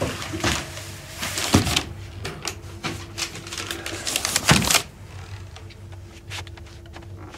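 Paper-wrapped parcels being handled and set down on a conveyor belt: quick clattering knocks with two heavier thumps, the second about four and a half seconds in. After that only the steady hum of the conveyor running.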